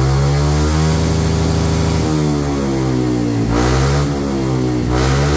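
Honda PCX 160 scooter's single-cylinder engine revved hard through a freshly fitted SKR aftermarket exhaust, rear wheel spinning free on the stand; the revs dip and climb again twice. The exhaust is set up to be quiet low down and loud at high revs.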